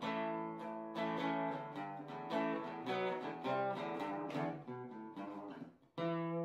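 Acoustic guitar music: a run of plucked notes, a brief break just before the end, then a chord struck that rings on.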